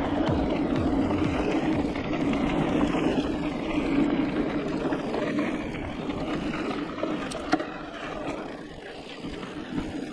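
Knobby mountain-bike tyres rolling fast over a packed dirt and gravel trail, a steady rushing hum with the bike's rattle, easing off a little near the end. A single sharp click comes about seven seconds in.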